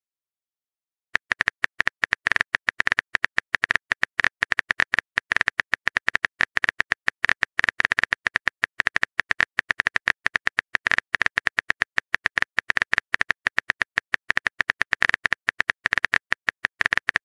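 Simulated phone-keyboard typing clicks: rapid, irregular taps, several a second, starting about a second in.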